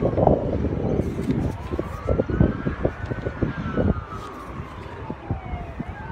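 Emergency vehicle siren wailing in a slow rise and fall, about one up-and-down sweep every four to five seconds. Gusts of wind buffet the microphone, loudest in the first few seconds.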